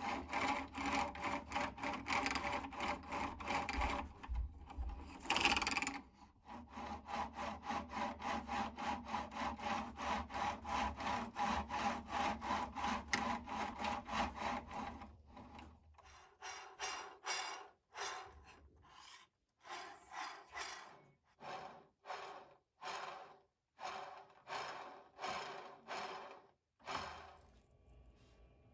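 An arrow shaft end being squared by twisting it against the sandpaper of a 3D printed arrow squaring tool. It makes a quick run of rasping rubbing strokes, about three a second, then from about halfway slower, separate strokes about once a second.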